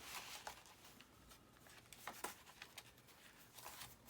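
Faint rustles and soft taps of paper sheets being handled and laid onto a stack, a few brief sounds over near silence.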